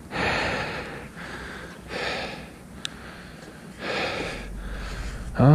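A man breathing close to the microphone: three breaths about two seconds apart, with a short click between the second and third.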